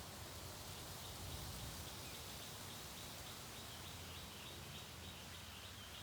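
Rain falling as a steady, faint hiss over a low rumble. Over it runs a rapid series of high chirps, about four to five a second, from a small animal such as a bird or insect.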